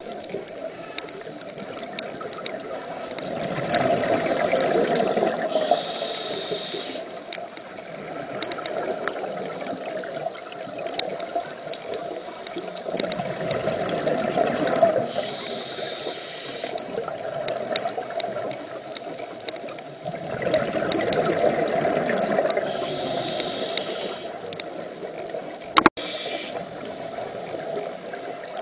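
Scuba diver's breathing heard underwater through a regulator, three cycles about eight seconds apart. Each is a swell of bubbling followed by a short hiss. A single sharp click comes near the end.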